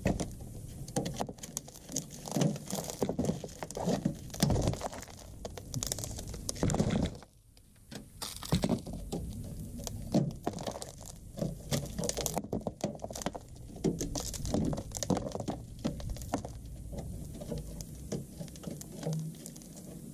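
Rusted-through sheet steel on a Volkswagen T3's lower body being pulled and broken off by gloved hands: irregular crackles, scrapes and clicks as the corroded metal and rust flakes break away, with a short lull about seven seconds in.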